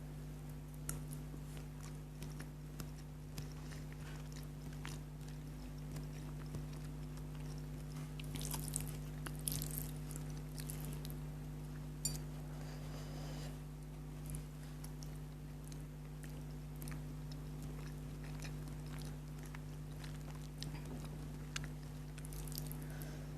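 Person chewing noodles close to the microphone: soft, scattered wet mouth clicks and smacks, with a few louder bites or slurps about a third and half of the way in, over a steady low hum.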